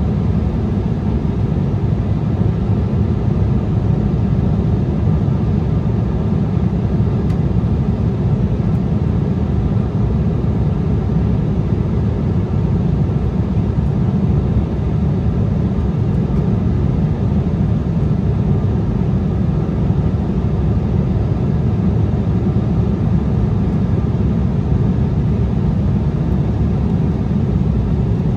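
Steady cabin noise inside an Embraer ERJ-175 airliner on descent: its GE CF34-8E turbofan engines and the airflow over the fuselage make a low, even rumble with no changes.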